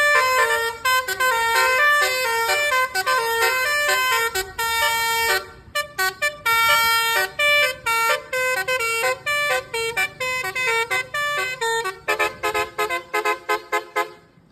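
Telolet bus horn, a multi-tone musical horn, tooting a tune of stepped notes, with a run of quick short toots near the end.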